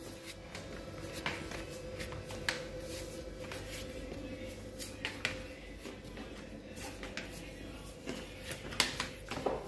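Quiet room tone with a faint steady hum and scattered light clicks and taps, a few more of them near the end.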